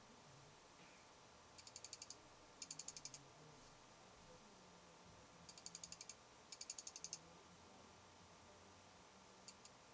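Fuji X-Pro1 lens chatter: the aperture blades clicking rapidly in four short, faint bursts of about half a second each, two in quick succession, then two more about three seconds later, with a couple of single clicks near the end. This is the aperture readjusting as the camera is tilted toward the light and back down.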